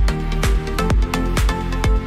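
Background electronic dance music with a steady kick-drum beat about twice a second.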